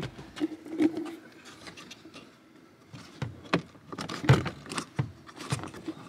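Irregular plastic clicks and knocks with light scraping as a hand works the clip and rod of a Fiat 500's inner door handle assembly loose, most of the knocks coming in the second half.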